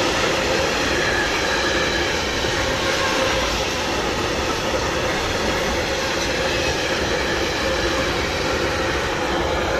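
Freight train of tank wagons running past at steady speed: the continuous noise of wagon wheels on the rails.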